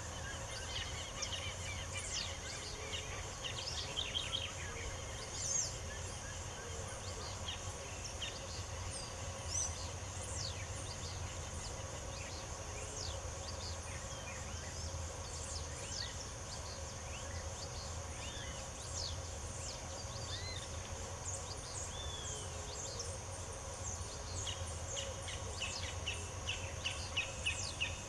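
Several songbirds chirping and singing, with short whistles and a quick run of repeated notes near the end, over a steady high insect buzz and a low rumble.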